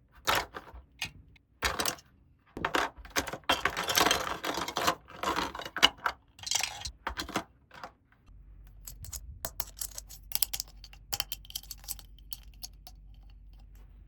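Small plastic toy pieces handled close to the microphone: bursts of clicking, clattering and rustling. About eight seconds in the sound changes to a low steady hum with scattered light taps and clicks.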